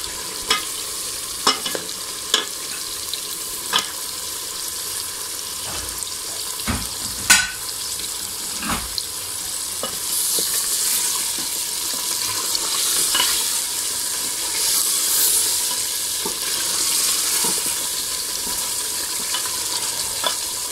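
Goat trotters sizzling in hot ghee and fried spice masala as they are added to a pot and stirred with a wooden spoon, with scattered sharp knocks as the pieces and spoon hit the pot. The sizzle grows louder about halfway through.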